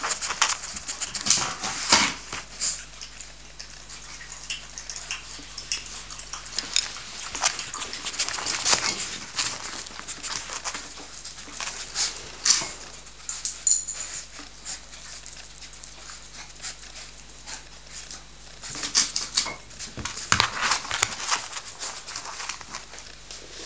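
Coton de Tulear puppies scuffling and playing on a tiled floor: scattered clicks and scrapes with small puppy noises. It comes in flurries, busiest a couple of seconds in, around eight to nine seconds, near twelve seconds, and again around twenty seconds.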